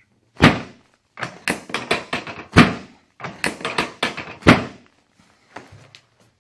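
Chiropractic drop table's pelvic drop section dropping under the chiropractor's thrusts during a hip adjustment: three loud thunks about two seconds apart, with quicker, lighter clacks between them.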